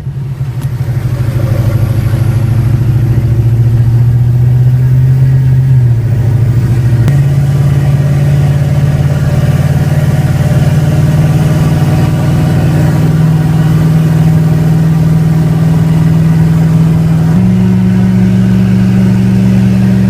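Ford Power Stroke diesel truck engine running under way, a steady drone whose pitch steps down and up a few times with gear changes and throttle.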